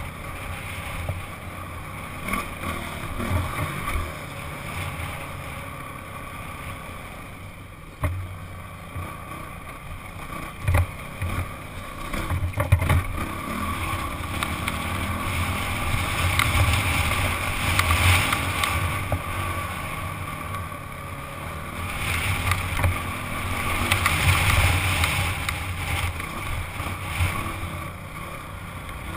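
Honda CRF dirt bike's four-stroke single-cylinder engine running under way on a rough trail, with wind on the microphone. The engine swells louder twice in the second half, and a few sharp knocks come near the middle.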